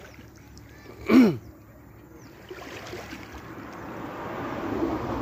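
Small waves washing over a pebble beach, the wash building steadily over the last couple of seconds. About a second in, a short, loud sound falls in pitch.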